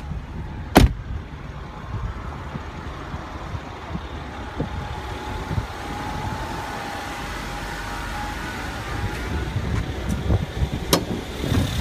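Mercedes-Benz GLE450 AMG's 3-liter biturbo V6 idling steadily, with a sharp knock about a second in and a click near the end.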